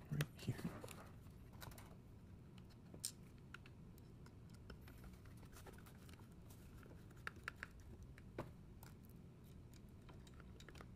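Scattered light clicks and taps of a small screwdriver and hard plastic parts as screws are driven into a car head unit's button-panel housing: a few in the first second, one about three seconds in, and a quick group of three around seven and a half seconds.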